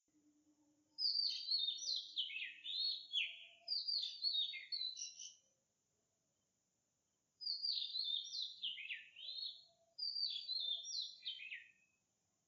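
Magpie calling in two long bursts of quick, warbling, mostly falling notes, separated by a pause of about two seconds.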